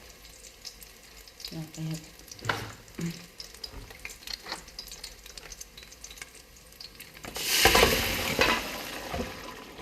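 Food frying in a pan, with scattered light clicks of a utensil stirring, then a loud burst of sizzling about seven seconds in that fades over the next two seconds.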